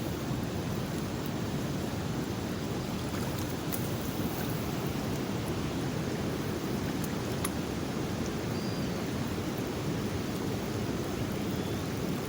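Steady rushing of a fast-flowing river in flood, with a few faint clicks.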